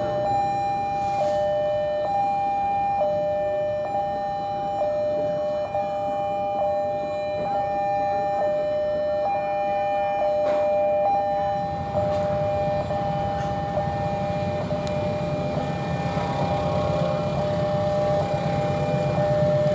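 Railway level-crossing warning alarm sounding its steady two-tone pattern, a high and a low note alternating about once a second. About twelve seconds in, the low rumble of an approaching train comes in beneath it and grows.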